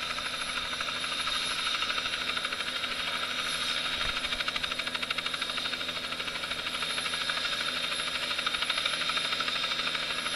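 Small two-bladed helicopter running on the ground with its main rotor turning: a steady engine whine over a rapid, even beat of the blades.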